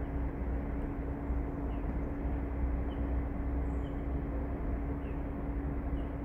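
Distant train on the electrified main line, heard as a low steady rumble with a constant hum running through it.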